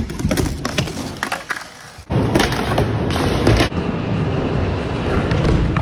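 Skateboard clattering, with several sharp knocks of the board in the first two seconds, then a loud steady rumble of its wheels rolling over the ramp from about two seconds in.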